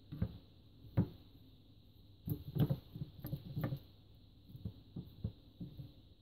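Fork and table knife tapping and scraping on a wooden cutting board while peeling soft cooked Jerusalem artichokes: a series of irregular soft knocks and scrapes, busiest from about two to four seconds in.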